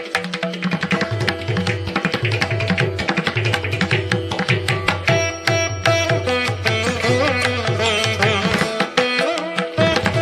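Instrumental background music in Indian classical style: hand-drum strokes over a steady drone, with a melody whose notes bend and glide about seven seconds in.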